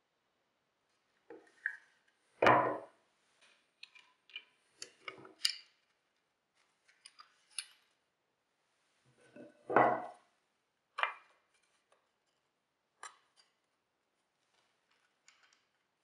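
Pine strips of a homemade jigsaw guide being handled and knocked against a wooden tabletop, with lighter clicks and taps from the parts and hardware. Two louder knocks, about two and a half seconds and ten seconds in.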